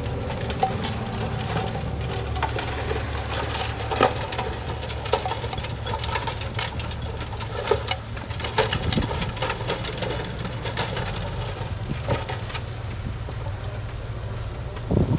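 Diesel engine of heavy earthmoving machinery running steadily, with irregular metallic clanks and knocks over it.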